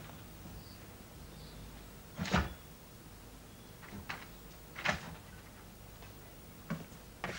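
About five separate sharp clicks or knocks at irregular spacing, a second or two apart, the loudest about two seconds in.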